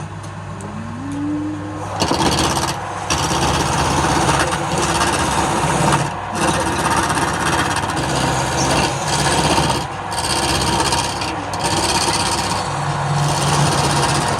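Wood lathe running, and from about two seconds in a turning tool cutting into the spinning wood with a steady scraping hiss, broken by a few brief gaps where the tool comes off the work.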